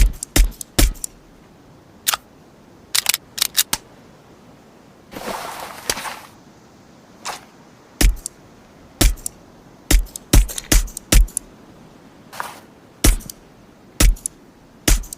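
Heckler & Koch USP Compact pistol firing through a suppressor: a long string of sharp, clipped reports at uneven spacing, some in quick pairs. A hiss lasting about a second comes just after the 5-second mark.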